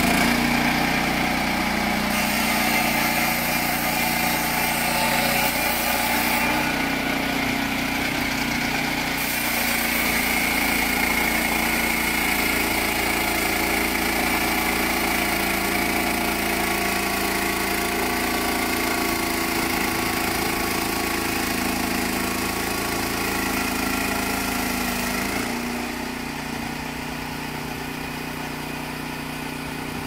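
Engine of a Junior Peterson portable swingblade sawmill running steadily, getting a little quieter near the end.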